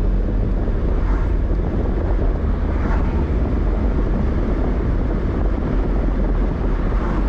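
Steady, deep rumble of road and wind noise from a vehicle driving along a highway.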